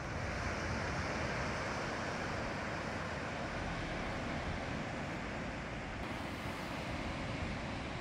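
Steady rush of sea surf breaking on a sandy beach, mixed with wind, with wind buffeting the microphone as a low rumble.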